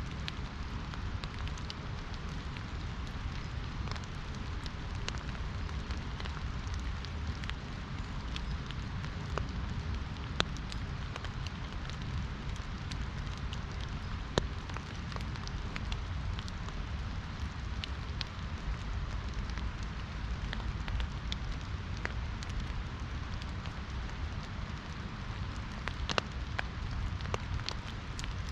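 Rain falling on an umbrella: a steady hiss of rain with many scattered sharp drop taps, a few of them louder, over a low rushing rumble of river water.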